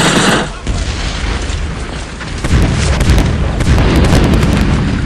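Deep explosion booms and rumble from battle sound effects, swelling about halfway through, with scattered sharp crackles.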